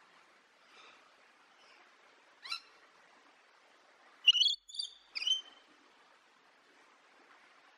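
Rainbow lorikeet calling: a short high call about two and a half seconds in, then three louder calls in quick succession just after four seconds in.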